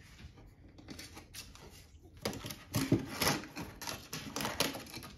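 A puppy scrabbling over a box and rummaging in a wooden tub of kindling: claws scraping and dry twigs knocking and rattling in quick, irregular clicks. The clicks grow busier and louder about two seconds in.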